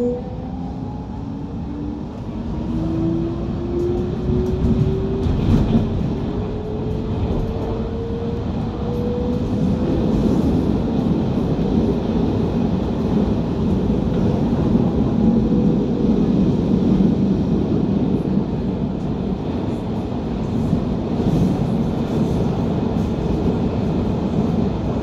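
ATM series 900 (Meneghino) metro train heard from inside the carriage, pulling away: its traction motors give a whine that climbs steadily in pitch for about the first ten seconds as it accelerates, then the train runs on at speed with a steady rumble of wheels on rail through the tunnel.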